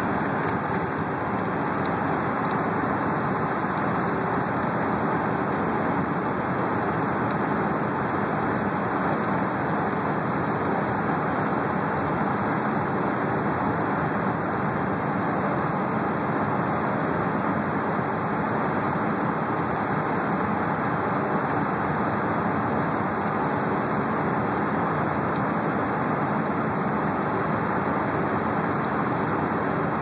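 Steady engine and road noise inside a moving transit bus cruising at highway speed, with an even level and no changes.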